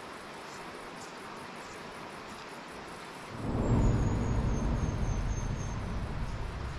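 Franklin River flowing over rocks as a steady rush. About halfway through a loud low rumble sets in suddenly, peaks within half a second and fades slowly.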